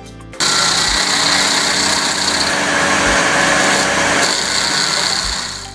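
Carlton 7015 TRX stump grinder running hard, its blade wheel cutting into wood, as a dense, steady engine-and-cutting noise. It starts abruptly about half a second in and fades out near the end.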